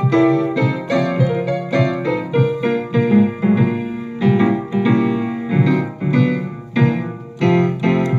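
Solo blues piano played live: a steady run of struck notes and chords across the bass and middle register.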